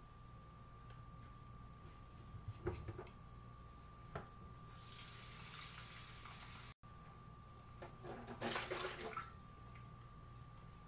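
Kitchen tap running into the sink for about two seconds, then cut off abruptly, followed by a second of irregular splashing as strawberries are rinsed in a wooden bowl. A couple of light knocks come before the tap starts, and a faint steady tone sits under everything.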